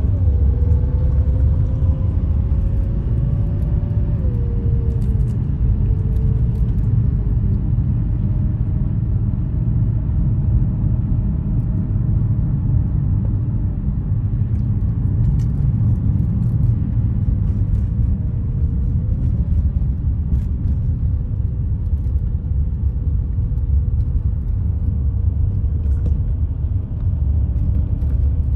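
Car driving along a street, heard from inside the cabin: a steady low rumble of road and engine noise, with a faint hum that drifts slightly in pitch.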